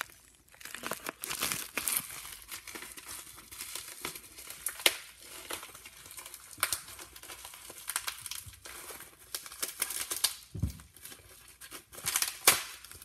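Bubble wrap crinkling and crackling in irregular sharp snaps as it is pushed, pulled and torn open by feet, with one dull low thump about three-quarters of the way through.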